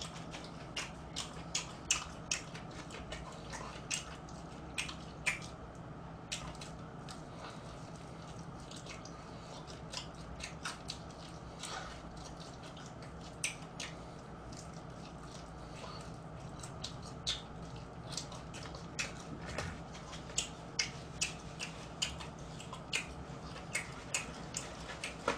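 Close-up eating sounds of crispy old-style fried chicken: chewing with many short sharp crackles and clicks as the fried skin is bitten and pulled apart, sparser in the middle and denser near the end, over a low steady hum.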